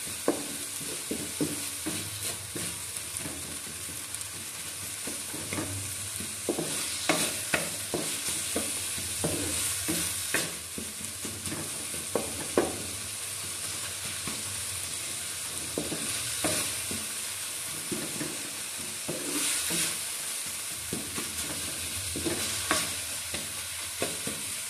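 Chopped onions, tomatoes and green chillies sizzling steadily in hot oil in a metal kadhai, while a wooden spatula stirs them and scrapes and knocks irregularly against the pan.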